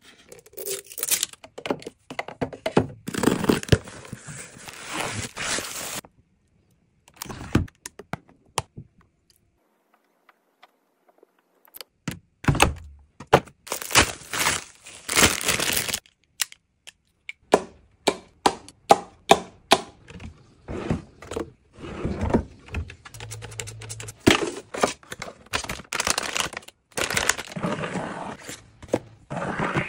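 Household items being unpacked and put away by hand: plastic packaging crinkling and tearing, with objects set down in a run of sharp knocks and clicks. A quiet pause comes a few seconds in, then a quick series of clicks follows.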